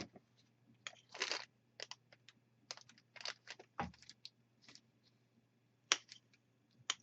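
Handling noise from unboxing small accessories: a scatter of light clicks, taps and rustles of plastic and packaging, with a few sharper clicks about four, six and seven seconds in.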